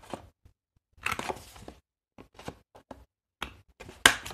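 Corner rounder punch crunching through paper: several sharp clicks, the loudest near the end, as it goes through two layers of card.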